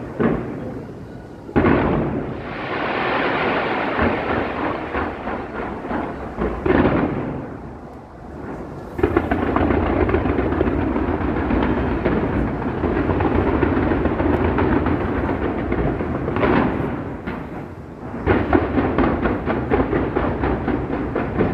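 Aerial fireworks bursting in continuous volleys: deep booms and dense crackling that swell with several sudden loud salvos, ending in a fast string of sharp bangs.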